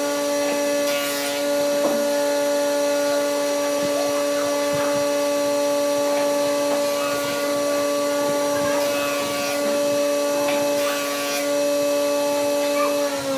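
An electric motor of a workshop machine running at a steady pitch, winding down in pitch right at the end as it is switched off. Over it, faint scratching and light ticks of a pen being drawn around a wooden template on a pine board.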